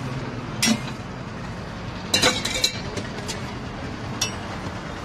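Metal utensils clinking against steel pots and a flat griddle: scattered clinks, with a quick run of them about two seconds in and a ringing clink near the end, over a steady low background noise.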